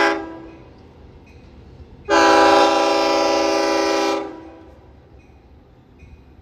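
Long Island Rail Road diesel locomotive's horn sounding as the train approaches: a short blast at the start, then a long steady blast of about two seconds, several notes sounding together, over the train's low rumble.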